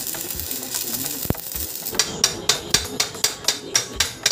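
Stick-welder arc crackling for about two seconds, then a quick, even run of hand-hammer strikes on steel, about four a second, chipping slag off the fresh weld.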